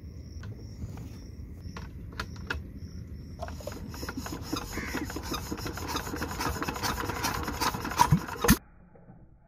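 Single-cylinder Petter-type diesel engine being hand-cranked to start: a fast rasping, clattering rhythm that begins a few seconds in, grows louder and quicker, then cuts off suddenly near the end.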